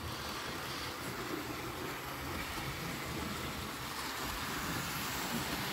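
Hornby model trains running on the track: a steady low hum of the electric motors with the rumble of wheels on rail, growing a little louder near the end.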